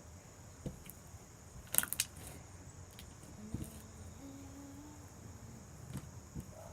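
Quiet handling noise: a quick cluster of sharp clicks about two seconds in and a few softer scattered clicks, over a faint steady high whine.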